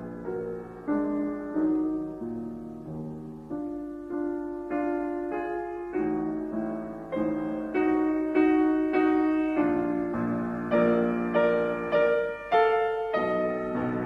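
Background piano music: a slow, gentle melody with a note or chord struck a little more than once a second, each ringing and fading, growing somewhat louder in the second half.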